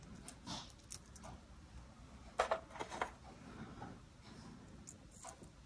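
Faint small clicks and taps of beads being handled and slid onto a thin metal headpin, scattered and irregular, the clearest pair about two and a half seconds in.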